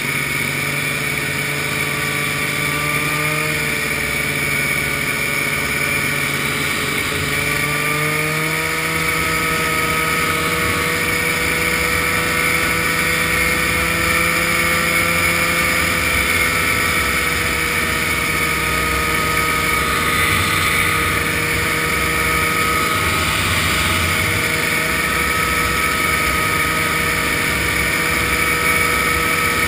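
Vintage snowmobile's two-stroke engine running steadily at cruising speed, heard from on board with wind and road noise. The engine pitch steps up slightly about eight seconds in.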